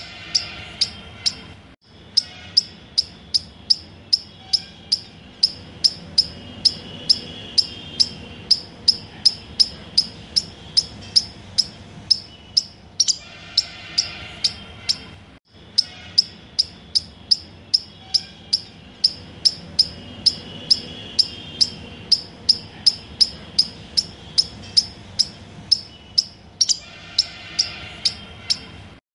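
Rapid, regular high-pitched chirping, about three chirps a second, with short stretches of bird song over it. The sound cuts out for an instant about two seconds in and again around the middle, where the same sequence starts over as a loop.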